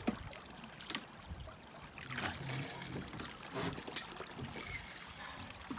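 River water flowing steadily, with scattered knocks and clicks and two brief high hissing bursts.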